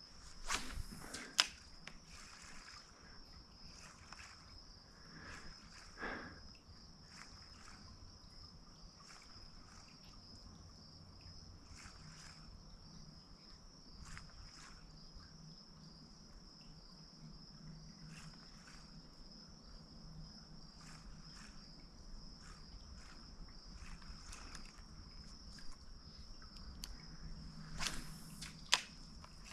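Insects trilling steadily on one high note, with scattered faint clicks and taps and a few sharper ticks about a second in and near the end.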